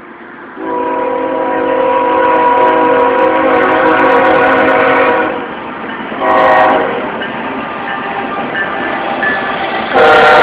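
Union Pacific locomotive air horn sounding a chord of several tones as the train approaches. It gives one long blast, then a short blast, and starts another long blast near the end, the pattern of a grade-crossing signal.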